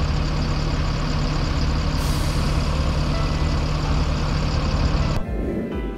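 Diesel engine of a Damri Royal Class coach bus running as the bus moves off, with a higher hiss joining about two seconds in. The sound cuts off abruptly near the end, and music takes over.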